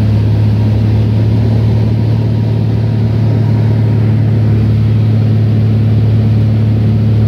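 Light aircraft's engine and propeller heard inside the cabin in cruise: a loud, steady low drone at one even pitch, with a rushing noise over it.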